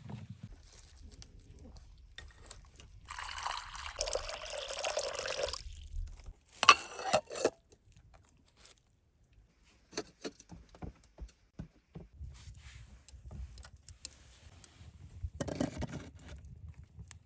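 Liquid pouring for about three seconds, followed by a few loud sharp knocks and scattered clicks, with a second brief pour near the end.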